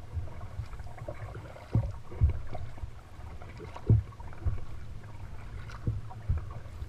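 Kayak being paddled with a double-bladed paddle: a dull thump at each stroke, coming in pairs about every two seconds, over a steady low rumble.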